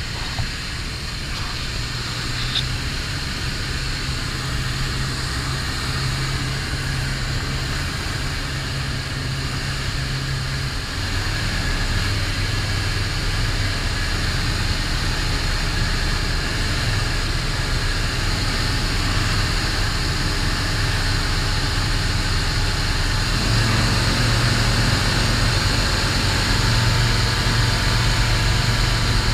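Zenith STOL CH 750 light aircraft's piston engine and propeller running steadily; the engine note steps up in pitch and level about eleven seconds in and again near the end as power is increased.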